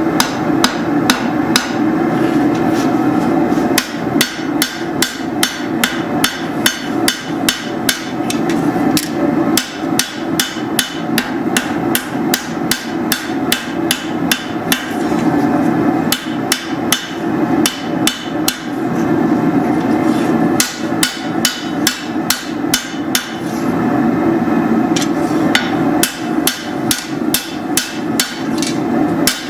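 Hand hammer striking a machete blade of hot steel on an anvil during forging: steady runs of sharp blows, about two to three a second, broken by a few short pauses, over a steady hum.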